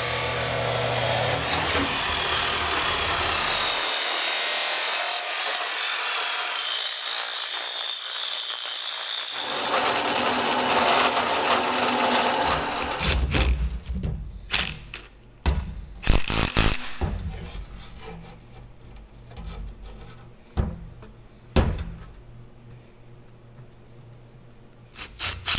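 Abrasive chop saw cutting through metal tube, a steady harsh grinding that runs for about the first twelve seconds. It gives way to scattered knocks and clunks as the cut tube and rubber hose are handled on a steel bench.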